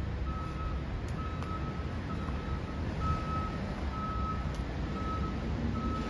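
A high electronic beep, each about half a second long, repeating with short gaps over a low steady rumble.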